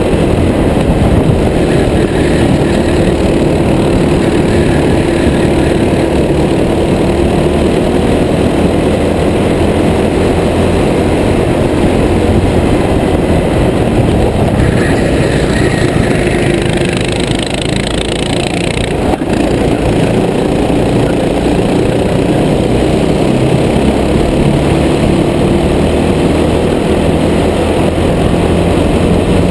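Racing kart engine running hard through a race, heard from the driver's helmet, its pitch wavering up and down with the throttle through the corners. For a few seconds midway a higher, rougher engine note joins in.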